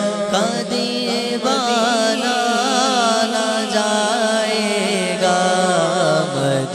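Male naat reciter singing an Urdu devotional kalam, drawing out a long, ornamented melismatic phrase with wavering pitch between lines of the refrain. A steady low drone is held beneath the voice.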